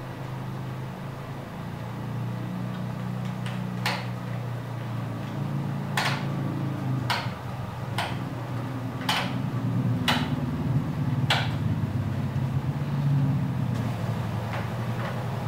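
Power Magic Mag Plus magnetic-resistance spin bike being pedalled: a steady low whir from its flywheel and drivetrain. From about four seconds in, a sharp click comes roughly once a second.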